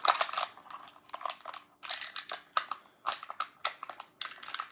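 Plastic magnetic building tiles clacking together as they are handled and snapped into place: a run of irregular sharp clicks.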